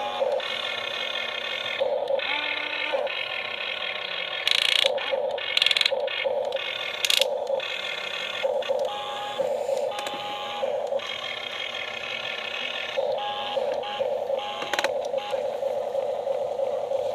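Small electric motors of a radio-controlled model excavator whining, starting and stopping every second or two, with sharp clicks and clatter a few seconds in.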